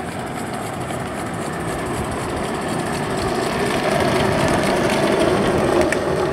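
Gauge 1 live-steam, gas-fired Accucraft Tornado locomotive running along the track with its train, a steady running sound that grows slowly louder as it approaches. A sharp click comes near the end.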